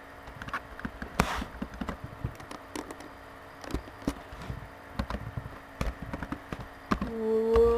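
Computer keyboard keys clicking irregularly as text is typed, with mouse clicks among them and one louder click about a second in. Near the end a person's voice makes a drawn-out sound for about a second, rising in pitch.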